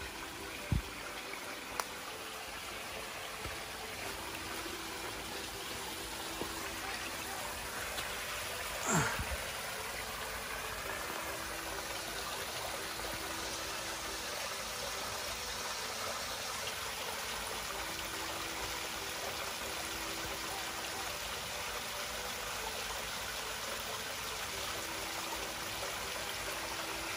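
Small stream trickling and splashing over rocks in a low waterfall, a steady rush of water. About nine seconds in, a brief, louder sound sweeps down in pitch.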